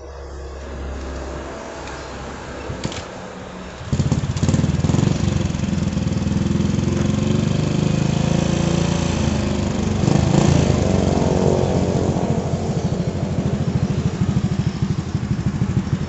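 Old Honda Supra's single-cylinder four-stroke engine starts about four seconds in and runs with a fast, even pulse. It gets louder briefly around ten seconds in, as if revved.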